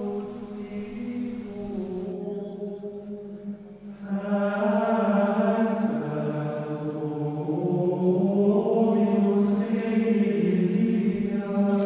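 Gregorian chant sung by men's voices in unison, in slow, long-held notes that step gently in pitch. It grows louder about four seconds in.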